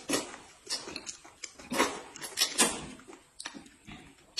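A person slurping noodles noisily off chopsticks in a string of short slurps, the loudest about two seconds in.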